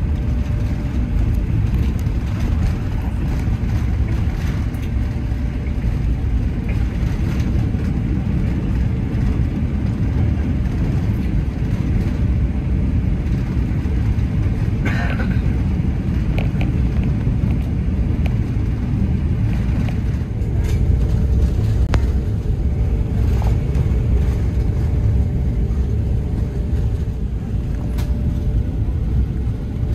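Passenger train running along the track: a steady low rumble, with a few sharp clicks from the wheels and rails here and there.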